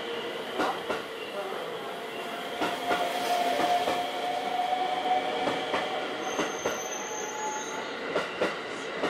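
Sunrise Izumo 285 series electric sleeper train rolling past along the platform: steady running noise with a high whine that is strongest a few seconds in, and irregular clicks and knocks from the wheels.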